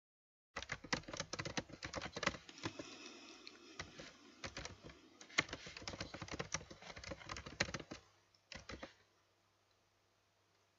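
Typing on a computer keyboard: a quick, uneven run of key clicks starting about half a second in and stopping around eight seconds, followed by a couple of last taps.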